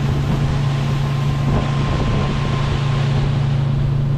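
Motorboat engine running steadily under way, a constant low drone, over the rush of wind and the boat's wake on the water.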